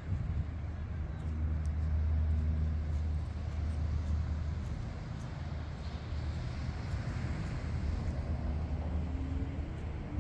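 Wind rumbling on the microphone over a steady wash of ocean surf, with a faint hum that rises near the end.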